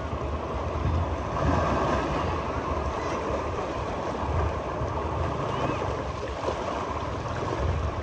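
Sea waves washing onto a beach, with wind buffeting the microphone in a low, uneven rumble.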